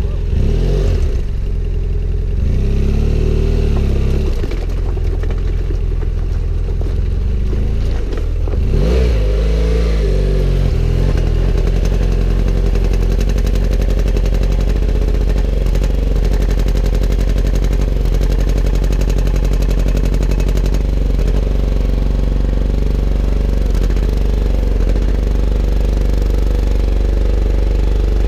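Adventure motorcycle engine running just after starting. Its pitch rises and falls a couple of times in the first ten seconds, then it holds a steady note.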